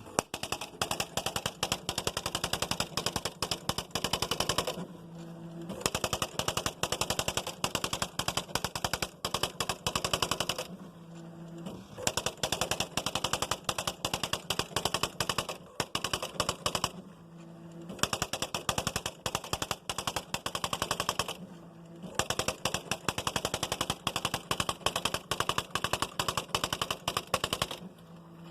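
Smith Corona Mark XV electronic typewriter printing its built-in demonstration text by itself, a fast, even rattle of strikes. The printing comes in runs of about four to six seconds, each broken by a short pause with a low steady hum between lines.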